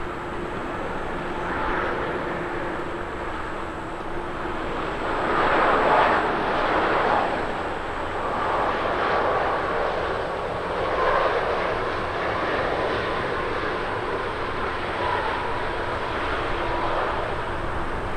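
Jet engines of an Air China Airbus A330-300 airliner as it comes in to land: a steady rushing roar that swells and eases several times, loudest about six seconds in.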